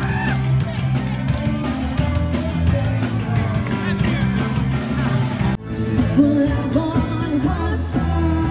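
Rock-pop music with a singing voice; about five and a half seconds in it cuts abruptly to a different recording of music with singing.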